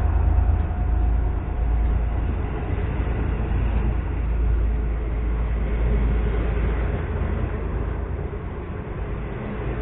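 V/Line locomotive-hauled passenger carriages rolling past close by, a steady deep rumble of wheels on the rails.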